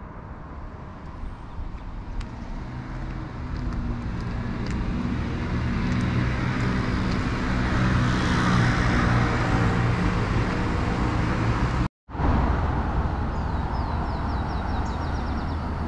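A car passing close by on a city street, its engine and tyre noise building to a peak about eight seconds in. After a sudden brief drop-out, steady street traffic noise carries on, with a quick run of faint high chirps near the end.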